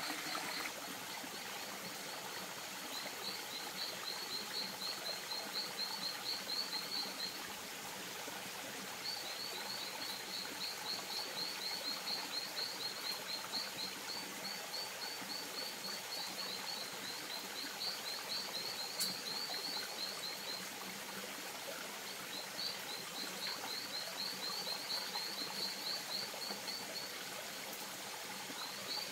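A frog calling in runs of high chirps at about four a second, each run lasting several seconds with short breaks between, over the steady trickle and rush of a shallow stream.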